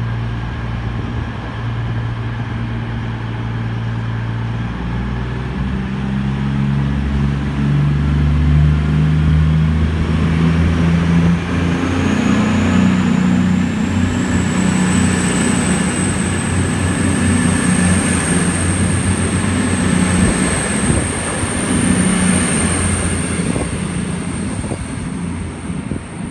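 Class 221 Super Voyager diesel-electric unit's underfloor diesel engines idling, then revving up about five seconds in as the train pulls away. A high whine rises and then holds over the engine noise for the rest of the time.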